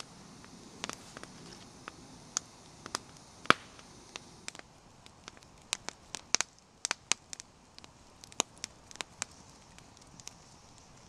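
Campfire crackling: irregular sharp pops and snaps, the loudest about three and a half seconds in, over a faint steady hiss.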